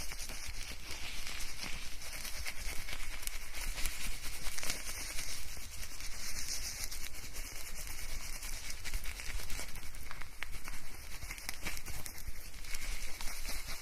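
Hair being shampooed: fingers scrubbing lathered hair and scalp, a continuous wet, crackly rubbing, recorded binaurally close to the ears.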